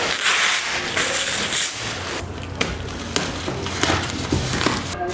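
Clear plastic stretch wrap being pulled and peeled off a cardboard box, crinkling and crackling in bursts with short pauses between them.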